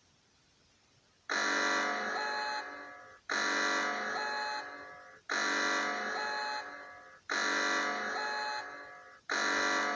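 Emergency-alert (EAS) alarm tone for Greece: a loud, harsh buzzer-like blast that starts sharply and fades, repeated every two seconds, starting about a second in.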